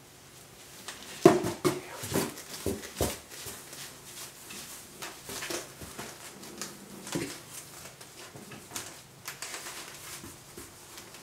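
Cardboard box knocking and rustling as a cat shifts inside it while a hand rubs her fur: a quick cluster of sharp knocks about a second in, the loudest, then softer scattered rustles and taps.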